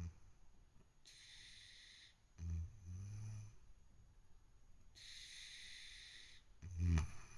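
A sleeping kitten snoring: two low rumbling snores a few seconds apart, the second one louder, with softer hissy breaths between them.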